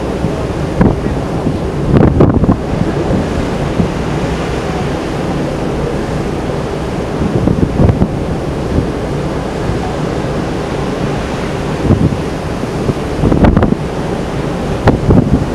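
Wind buffeting the microphone on a ship's open deck over the steady rush of the sea, with louder gusts about two seconds in, around eight seconds, and twice near the end.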